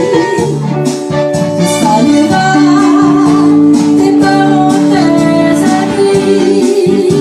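Electronic arranger keyboard playing an instrumental passage: a melody with long held notes over a steady, repeating bass accompaniment.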